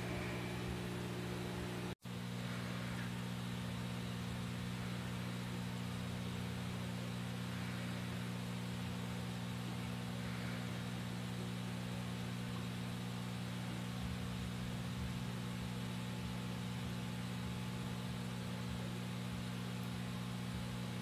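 Aquarium air pumps and filter running: a steady, low electrical hum over a faint even hiss. The sound cuts out for an instant about two seconds in, then carries on unchanged.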